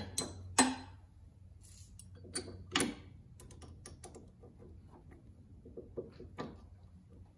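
Hand tools clicking on a Corvette's rear sway bar end link: a wrench on the link's nut and an Allen key holding its stud, in scattered light metal clicks and taps. The loudest come in the first second and about three seconds in.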